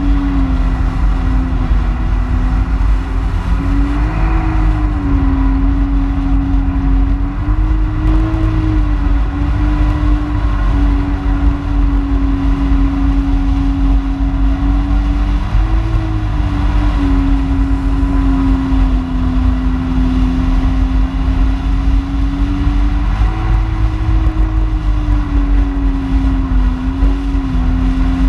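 Personal watercraft engine running at speed, its tone holding steady with a few brief rises and dips as the throttle eases and opens. A low rumble of wind and water runs beneath it.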